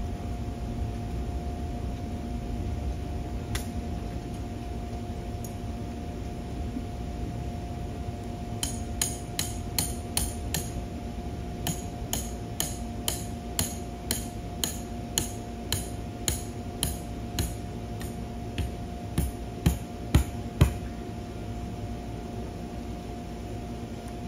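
A hammer striking metal anchor stakes, a long series of sharp ringing clanks at about two blows a second from about nine seconds in, the last few blows the hardest, then stopping. Under it runs the steady hum of the inflatable's blower.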